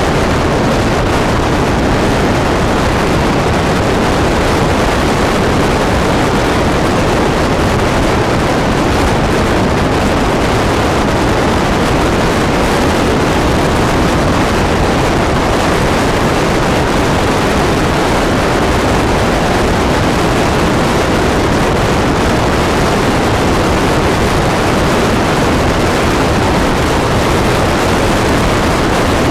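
Steady, loud road and wind noise of a car driving at speed, an even rush of tyre and air noise that does not change.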